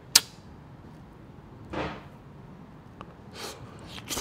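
Close-miked bite into a grape with a sharp pop right at the start, then wet chewing of the grape with three short, noisy mouth bursts spaced about a second or two apart.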